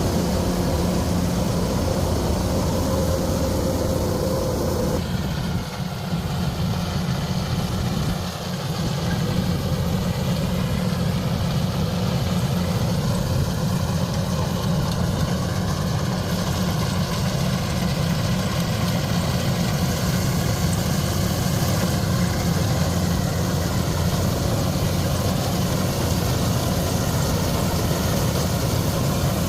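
Heavy farm machinery's diesel engine running steadily with a low hum. About five seconds in, a higher tone drops out and the sound dips briefly twice, then carries on unchanged.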